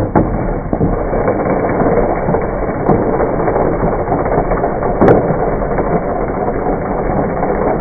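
Electric mixer grinder running at speed with the torn remains of anti-stress balls inside its jar, the blades churning them in a steady loud clatter of small knocks.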